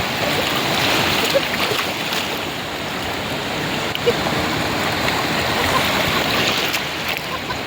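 Sea water washing and surging at the shore in a steady, continuous rush.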